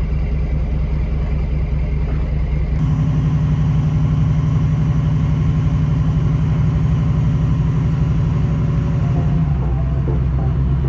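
Farm machinery engine running steadily at a constant speed. About three seconds in the sound changes abruptly to a stronger, slightly higher hum, and it shifts again near the end.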